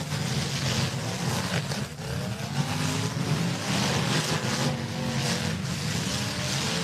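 Several demolition derby cars' engines running hard and revving up and down together, with tires spinning, as the cars shove against each other.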